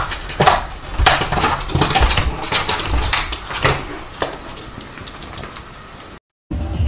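Pet door flap rattling and clattering in its frame as a heavy cat pushes through it. The clatter is loud for the first four seconds or so, then dies away.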